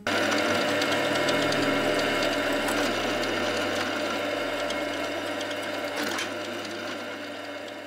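Drill press running with a small twist drill bit cutting into a thin metal plate held in a vise: a steady low hum with a high cutting hiss, starting abruptly and slowly fading toward the end.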